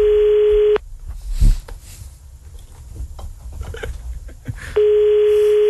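Telephone ringback tone heard over the phone line while a call rings out: a steady single tone that stops just under a second in and sounds again for about a second near the end. A short, louder thump falls between the two rings, over faint line noise.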